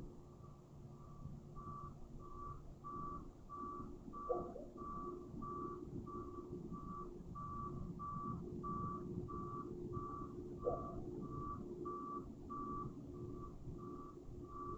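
A long, even series of short toots at one high pitch, about two a second, the call the uploader took for a strange animal at night. A dog barks twice in the distance, once about four seconds in and again near ten seconds, over a low background rumble.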